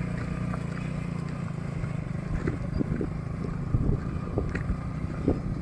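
Honda Supra X 125's single-cylinder four-stroke engine running steadily, driving a homemade mini jeep, with scattered knocks and rattles.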